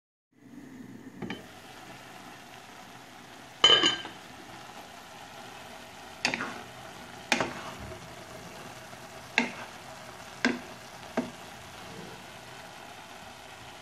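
Mallow greens sizzling as they cook down in a granite-coated pot, stirred with a wooden spatula that knocks against the pot six or seven times; the loudest, ringing clank comes a little under four seconds in.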